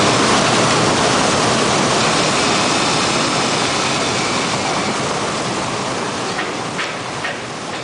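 Water jets spraying and splashing inside a running washer: a steady rushing hiss that slowly fades, with a few faint clicks near the end.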